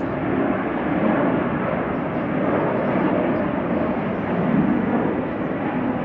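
Airplane flying over, its engines making a loud, steady noise.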